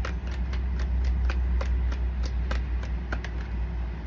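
A tarot deck being shuffled by hand: short, dry clicks of cards about three times a second, over a steady low hum.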